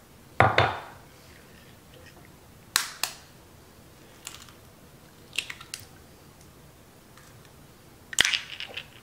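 A glass measuring cup set down on the counter with a knock, then eggs and eggshells handled and cracked: a few sharp taps and clicks against glass and a ceramic bowl, with a louder cluster of clicks near the end.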